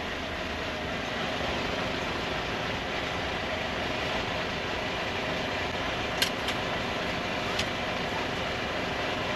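Truck's diesel engine running steadily, with a few short sharp clicks about six and seven and a half seconds in.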